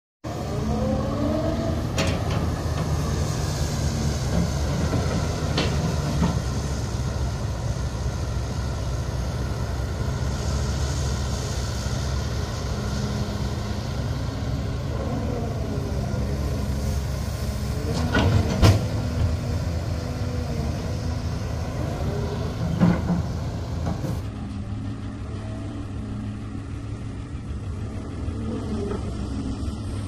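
Hydraulic excavator's diesel engine running steadily under load, its pitch rising and falling as the arm works, while it loads soil into a dump truck. A few sharp knocks are heard, the loudest a little past halfway. The sound changes abruptly near the end.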